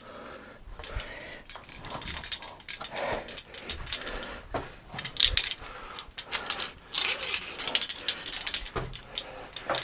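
Metal climbing gear clicking and jangling as a rope ascender is pushed up and the rope is pulled through: irregular clicks and knocks with rope and clothing scraping between them.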